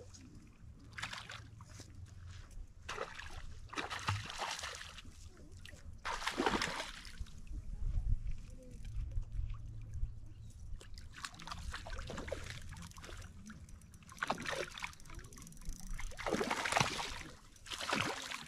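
A hooked trout splashing and thrashing at the water's surface as it is reeled in to the shore, in a series of irregular splashes that grow stronger near the end.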